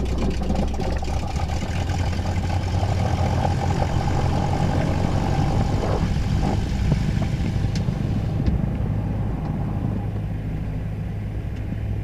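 Cessna 172's piston engine idling steadily just after start, heard from inside the cabin, with a few faint clicks partway through.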